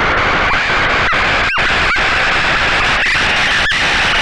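SoundHack Spectraphon Eurorack oscillator in Chaos mode, putting out a dense, noisy, chaotic texture from its feedback-modulated sines. It is broken by a few brief dropouts and short curved chirps.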